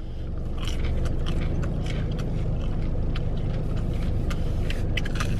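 Steady low hum of a car cabin, the engine running, with scattered small clicks and rustles of someone chewing a chicken nugget.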